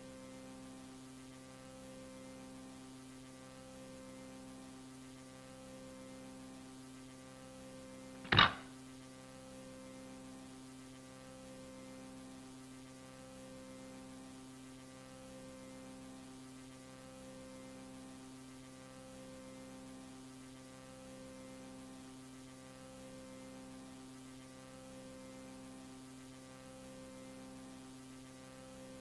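Low, steady electronic hum made of several droning tones, throbbing gently about every second and a half: the ambient drone of an analog-horror soundtrack. A single sharp click cuts in about eight seconds in.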